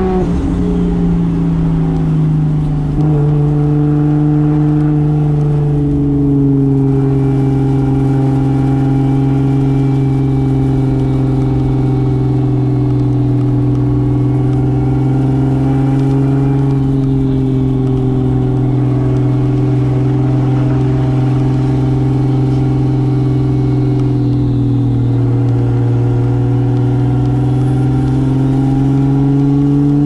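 The 1995 Toyota Soarer's single-turbo 2JZ straight-six is pulling the car at a steady cruise, its note holding nearly level. The pitch steps up slightly about three seconds in, eases down a little late on and climbs gently near the end.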